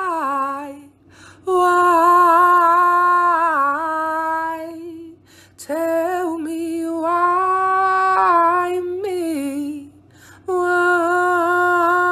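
A woman singing slow, long held notes in phrases of about four seconds, with short breaks between them.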